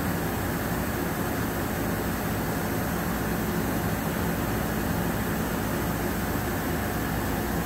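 SHW CNC horizontal machining center running through its axis reference routine: a steady mechanical hum with a few held tones over constant noise.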